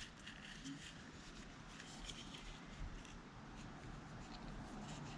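Faint rustling and light crinkling of Teflon thread-seal tape being pulled off its roll and wrapped around the threads of a barbed hose fitting.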